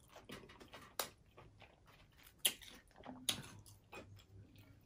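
Taco salad with broken crisp taco shell pieces being bitten and chewed close to the microphone: three sharp crunches, about one, two and a half and three and a half seconds in, with soft chewing between.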